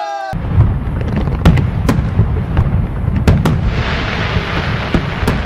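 Fireworks display: shells bursting in a continuous crackling rumble, with several sharp bangs standing out. It begins abruptly right after a shout.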